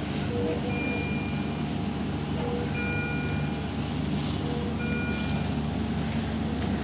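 Repeating electronic alarm beeps from ICU bedside equipment: a long two-tone beep about every two seconds, with a shorter, lower beep in between. Under them runs a steady low hum of machinery.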